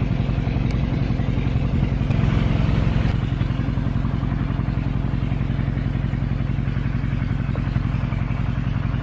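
A small engine running steadily at idle, a low, even hum that swells slightly about two seconds in.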